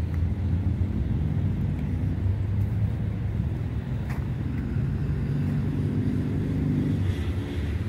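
Steady rumble of car traffic on a busy city avenue, swelling slightly as a vehicle passes about two-thirds of the way in.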